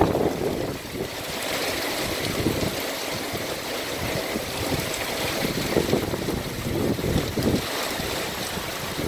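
Heavy wind-driven rain hissing steadily, with irregular gusts of wind buffeting the microphone.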